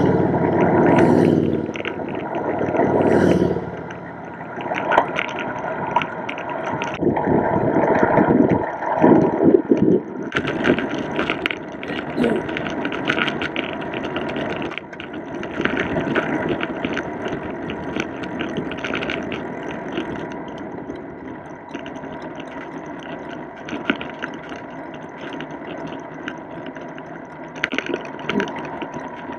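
A touring motorcycle overtakes close by, its engine loudest at the start and fading within about four seconds. Then a steady rush of wind and tyre noise from a bicycle riding on a paved road, with frequent clicks and knocks over bumps.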